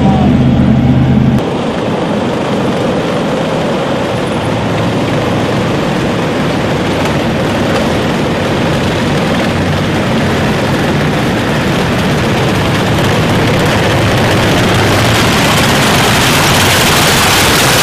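Motor vehicle running: a steady noisy rush of engine and travel noise. It drops suddenly about a second and a half in and grows brighter toward the end.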